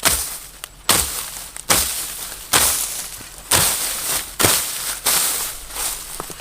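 Rhythmic heavy strikes, about one a second, each a sharp hit followed by a crunching rustle, as of a tool working.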